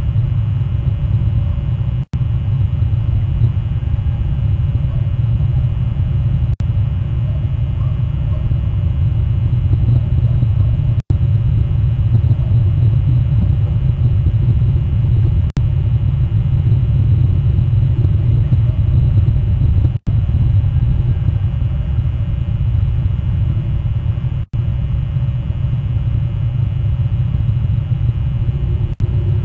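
Steady low rumble picked up by an outdoor nest-camera microphone on a live stream. It is cut by very short audio dropouts about every four and a half seconds.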